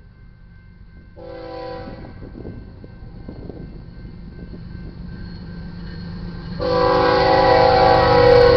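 Diesel locomotive air horn on a GE ES44AC leading an approaching freight train. It gives a short blast about a second in, then a long, loud blast begins near the end, over the train's rumble growing as it nears.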